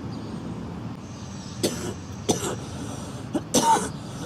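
A girl coughing: after a short pause, four short, sharp coughs in the second half, the last one the loudest and ending in a brief voiced sound.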